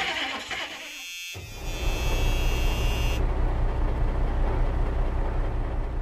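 Engine running with a deep, steady rumble and rapid, even pulsing, cutting in abruptly about a second in after a brief drop-out.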